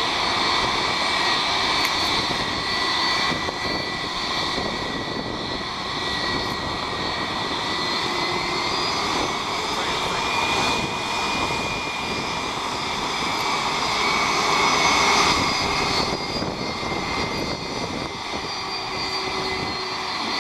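Jet airliner engines idling at low power: a steady high-pitched whine of several tones over a broad rushing noise, the pitch shifting slightly partway through.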